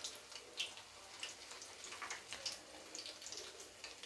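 Vadas frying in hot oil in a kadai over a low flame: a faint sizzle with many small, irregular crackles and pops.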